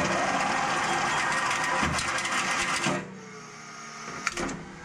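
A self-propelled howitzer's gun mechanism runs with a fast mechanical rattle. It starts abruptly, stops after about three seconds, and leaves a softer hum with a sharp click near the end, as the gun is worked before firing.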